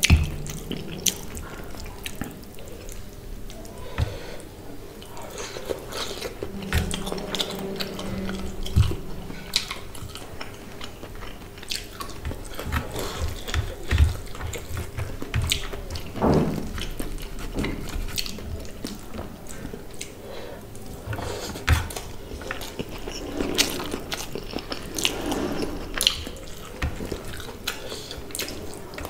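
Close-up eating sounds of rice and fish curry eaten by hand: wet squishing as fingers mix rice and curry on a metal plate, with chewing and mouth smacks. Many short, irregular clicks and smacks come one after another.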